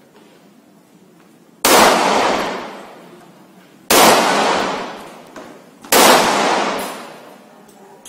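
Three 9mm shots from a CZ Shadow 2 pistol, about two seconds apart, each report trailing off over about a second.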